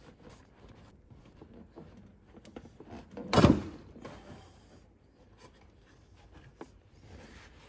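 Hand-work on fuel injector parts in an engine bay: small clicks and rubbing of plastic and metal parts, with one loud, short thud about three and a half seconds in.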